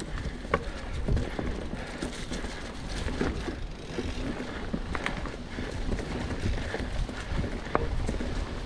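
Mountain bike rolling over a dirt trail strewn with leaves: steady tyre and ride noise with a low rumble, and the bike's chain and parts rattling in scattered sharp clicks and knocks over bumps.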